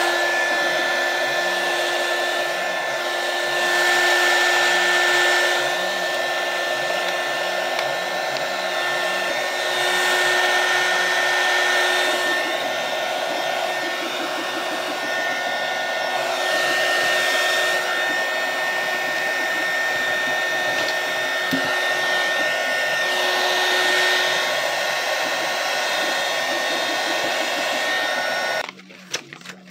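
Hot-air blower running steadily with a constant whine, shrinking black PVC heat-shrink wrap onto a battery pack. It switches off suddenly about 29 seconds in.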